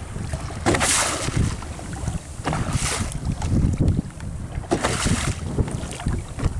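Wind rumbling on the microphone and sea water washing against the hull of a small open fishing boat, with a louder rush of water about every two seconds as waves hit the side.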